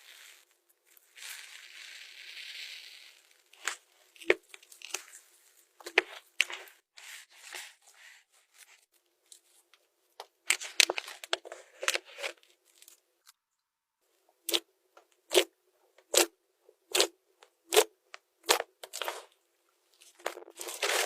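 Slime being squeezed and pulled, making a brief crackle and then sharp, separate clicks and pops, about one a second in the second half.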